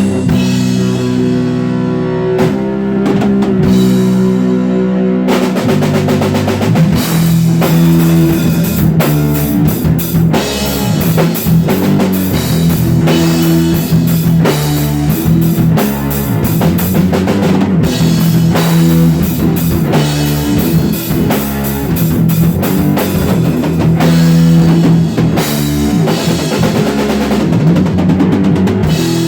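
Rock band jam: a drum kit and guitar playing together over sustained low notes, with the drums coming in fully about five seconds in.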